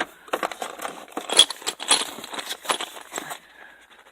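Metal hand tools clinking and rattling against each other in a tool cart drawer, a run of irregular sharp clinks that thins out near the end.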